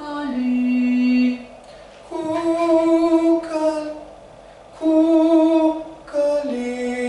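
A single voice singing a slow vocal line in four short phrases, each ending on a long held note with vibrato, with brief pauses between them.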